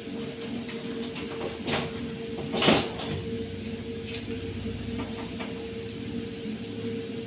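Steady hiss and hum from a gas stovetop, broken by two clatters of cookware, the second louder, at about one and a half and two and a half seconds in.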